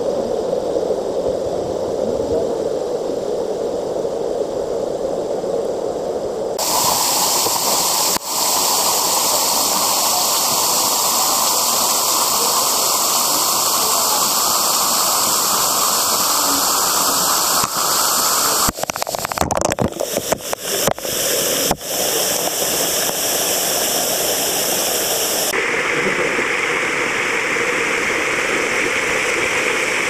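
Waterfall pouring onto rocks and into a pool, a steady rushing hiss of falling water. It starts muffled and low, then about six seconds in turns bright and full as the water splashes close by; a brief run of knocks and dropouts comes around twenty seconds in.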